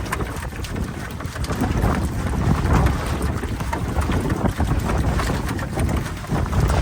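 Wind buffeting the microphone in a steady low rumble, with scattered small clicks and rattles over it.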